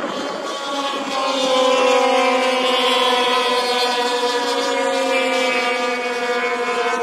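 Racing snowmobiles on an oval track, their engines whining at high revs. The engine note swells about a second in and then slowly falls in pitch as the sleds run on down the track.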